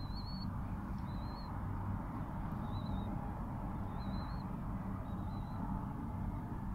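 Dove chicks peeping: short, thin, wavering high-pitched peeps, about one a second, over a steady low hum.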